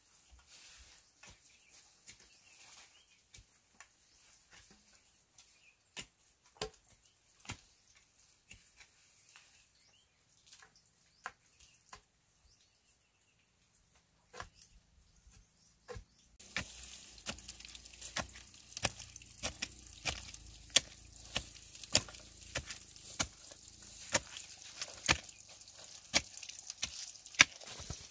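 Hand-tool work: irregular sharp knocks and chopping strikes, scattered and faint at first. After about 16 seconds a steady hiss comes up behind them and the strikes come quicker and louder.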